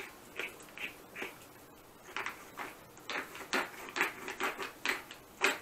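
Light kitchen clicks and taps from food preparation, a few each second, sparse at first and busier from about two seconds in.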